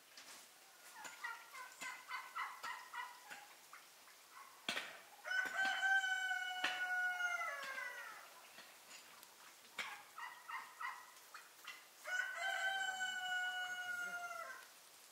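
A rooster crowing twice, each long crow falling in pitch at its end. A quick run of short clucking calls comes before each crow.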